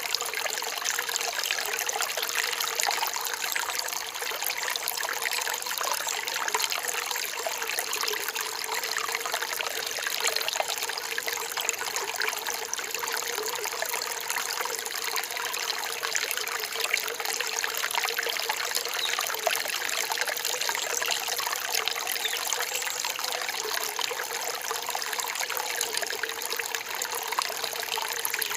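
Rain-forest stream trickling and splashing steadily.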